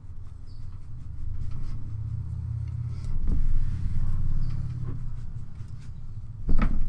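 A steady low rumble that swells in the middle, with a few faint knocks.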